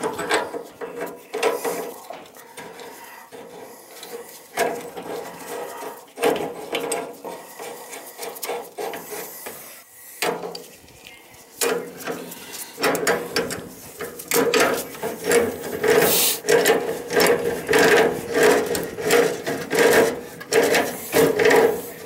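Metal pipe fitting being turned by hand and then by wrench on the inlet of a gas valve: repeated scraping and rubbing of metal on metal. The strokes come scattered at first, then in a steady run of about two a second through the second half.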